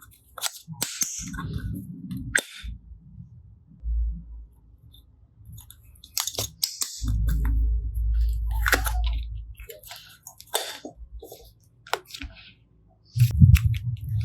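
Slime being squished and worked by hand: wet clicks and crackles of popping air bubbles, with stretches of low squelching.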